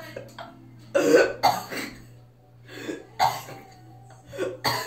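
A girl making several short, sharp vocal bursts, two or three close together about a second in, then one more about three seconds in and another near the end.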